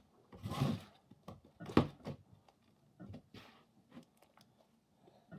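Sandy glitter slime being squished and worked by hand in a few short bursts, with one sharp click or pop about two seconds in that is the loudest sound.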